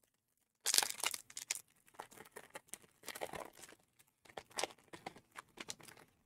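Foil wrapper of a Panini Prizm football card pack being torn open and crinkled, in several spells of crackling rustle, loudest about a second in.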